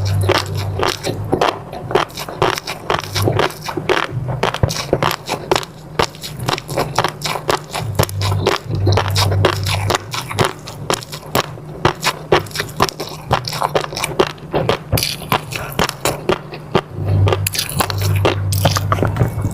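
Close-miked eating: continuous wet chewing with rapid clicks and smacks as mouthfuls are bitten and chewed.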